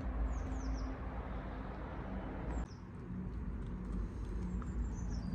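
Small birds chirping, several short high chirps that fall in pitch, over a steady low rumble that drops slightly about two and a half seconds in.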